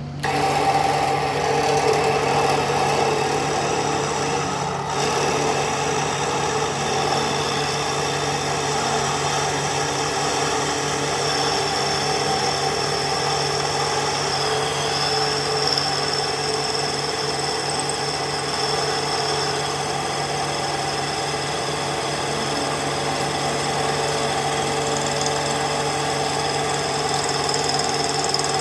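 A workshop machine tool or power tool, used in repairing a broken engine timing gear, comes in abruptly and runs steadily with a constant hum.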